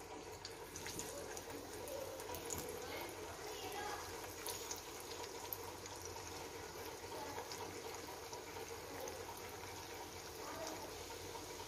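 Potato bites of boiled potato and rice-flour dough frying in hot oil in a pan: a steady sizzle with scattered small crackles as the pieces go in.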